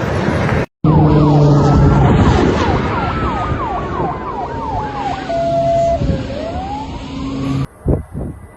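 Several emergency vehicle sirens sounding together: one in a fast yelp of falling sweeps, about three a second, another wailing slowly down and then back up, over a steady low tone. The sirens cut off about a second before the end.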